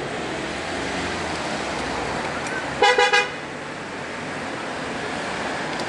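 A vehicle horn gives two short toots a little under halfway through, over steady street traffic noise.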